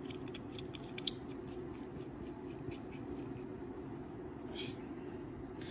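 Small clicks and ticks from a stainless-steel QP Design JuggerKnot Mini rebuildable tank atomizer being handled, several a second at first and then fewer, with one sharper click about a second in. A steady low hum lies underneath.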